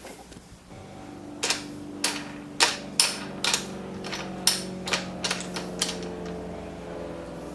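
A string of sharp knocks and clacks, about nine in four seconds and irregularly spaced, over a steady low hum that starts about a second in.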